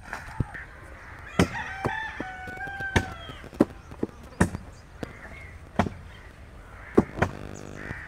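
Pickaxe blows striking packed soil and roots at the base of a eucalyptus trunk, about a dozen sharp, irregularly spaced strikes. A rooster crows once, starting about a second and a half in.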